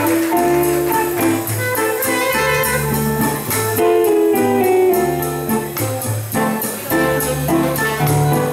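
Small jazz combo playing live: electric guitar over plucked upright bass and a drum kit keeping time on the cymbals.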